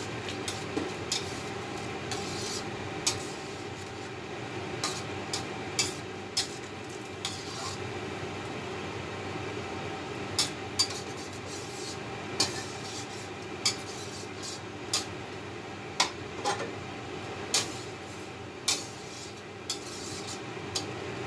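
Metal spatula stirring and scraping in a steel wok of cream sauce with prawns and squid, with sharp clinks of metal on metal roughly once a second, over a steady low hum.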